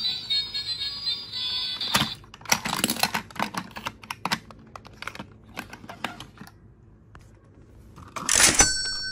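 Hard plastic toy trains clicking and knocking against each other and the wooden tabletop as they are handled, with a quick flurry of clicks a couple of seconds in that thins out. Near the end a louder rattling burst comes, followed by a steady electronic tone.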